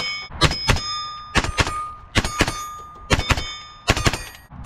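A semi-automatic .22 WMR (22 Magnum) AR-15 rifle firing a string of shots, several coming in quick pairs. Struck steel plate targets ring after the hits.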